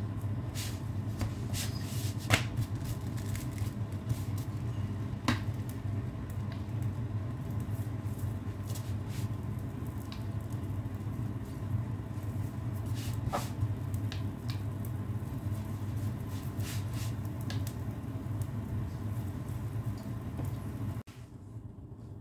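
Kitchen background while chapatis fry in a pan: a steady low hum with a few light clicks of a utensil against the pan. The hum drops suddenly to a quieter background near the end.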